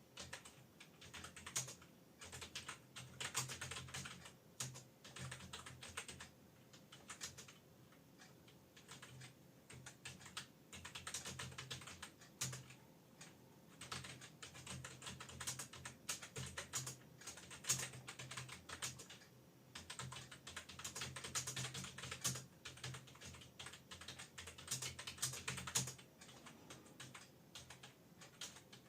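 Fast touch-typing on a computer keyboard: rapid runs of key clicks in bursts of a few seconds, broken by short pauses.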